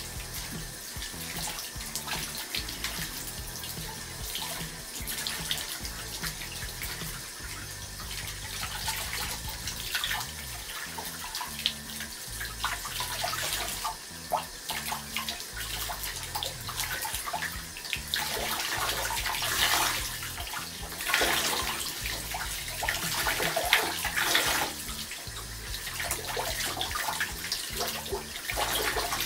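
Bathtub faucet running cold water over hair as it is rinsed under the tap: a steady rush of water with louder splashes now and then, most of them in the second half.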